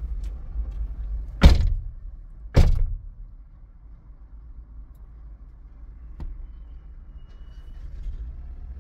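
Two doors, most likely a car's, slammed shut about a second apart, over a low steady rumble.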